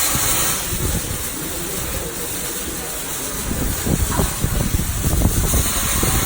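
Electric arc welding: a steady hiss with irregular crackling and spitting from the arc, the crackling growing denser about two thirds of the way in.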